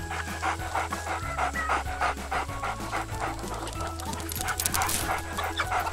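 Dog panting, quick and rhythmic, over light background music with a steady bass line.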